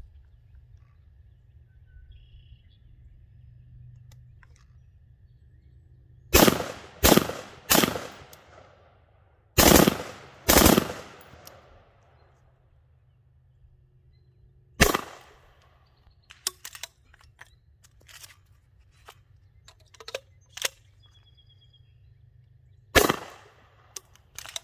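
Seven loud gunshots from a rifle fitted with an M203 grenade launcher, each trailing off in an echo: a quick string of three, then two more, then two single shots spaced several seconds apart, with lighter clicks and knocks in between.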